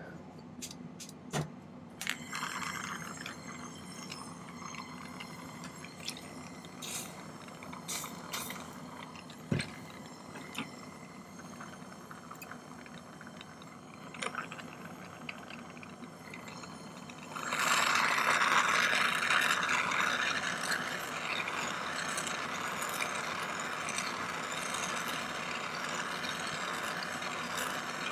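Jeweller's soldering torch flame hissing steadily while heating sterling silver wire joints for hard soldering. It grows much louder about two-thirds of the way through. Before that there are a few light clicks of metal tools.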